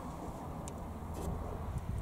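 Light clicks of the antique wall clock's wooden case door being swung open, a few times over two seconds, over a steady low outdoor rumble.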